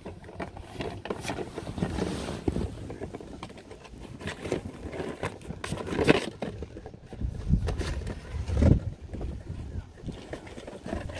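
Vizsla dog ripping apart a small cardboard box, holding it down with a paw and tearing at it with its teeth: irregular crackling, scraping and tearing of cardboard, with the loudest rips about six seconds in and again near nine seconds.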